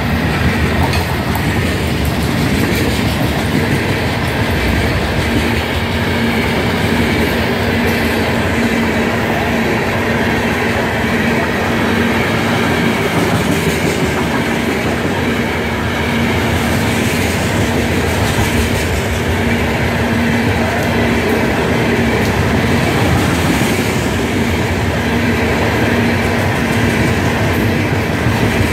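Freight train cars rolling past close by: the steady rumble and clatter of steel wheels on the rails, with a faint steady tone running underneath.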